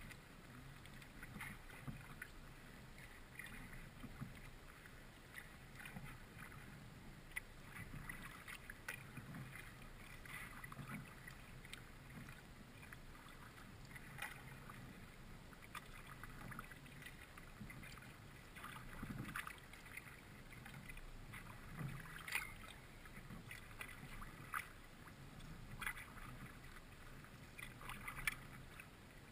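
Kayak paddle strokes in calm creek water: the blades dipping and dripping, with soft water swishes along the hull, faint and repeating every second or two. A few sharper knocks come later on.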